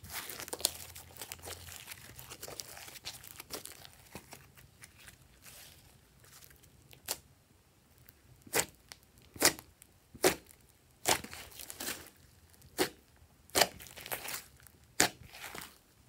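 Fingers pressing and kneading glossy slime: a dense run of crackling and squishing, then from about halfway a string of loud, sharp pops, roughly one a second.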